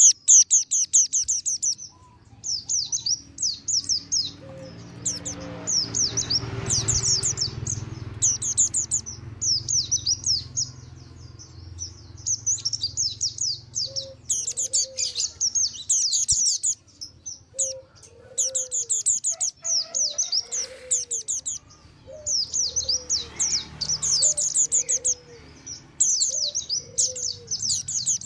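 Mountain white-eyes singing: rapid, high twittering phrases about one to two seconds long, repeated with short pauses.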